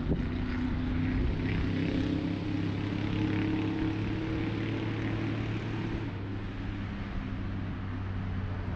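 A steady low motor drone, easing slightly about six seconds in, with faint irregular splashing of water as a bass is brought into a landing net.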